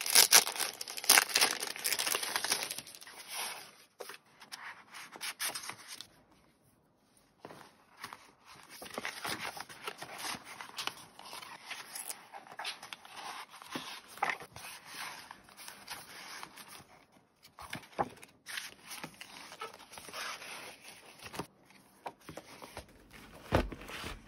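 Clear plastic packaging and a plastic zip pouch crinkling and rustling as they are handled, loudest in the first few seconds. After a brief pause about six seconds in, softer rustling and tapping as paper notebook inserts and a leather notebook cover are handled.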